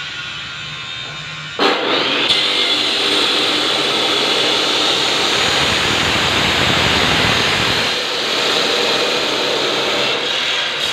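Abrasive cutting disc spinning, then biting into metal pipe about one and a half seconds in, giving a loud, steady grinding hiss that lasts to the end.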